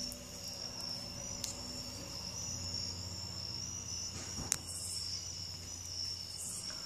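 Night insects, crickets, chirring steadily in a continuous high-pitched trill, with one sharp click about four and a half seconds in.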